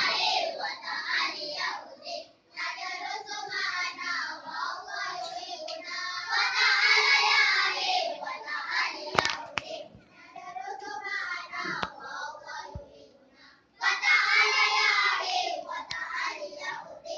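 A group of young children singing together, in phrases broken by short pauses. A sharp click or two about nine seconds in.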